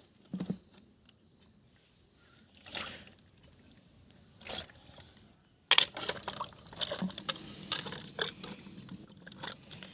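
Water pouring and splashing out of a plastic bottle fish trap as it is emptied. There are a few brief splashes, then a continuous splashing, trickling pour from about six seconds in.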